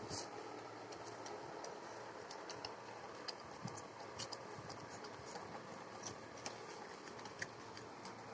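A chocolate Labrador puppy lapping liquid from a small plastic bowl: quiet, irregular wet clicks of the tongue and mouth against the bowl.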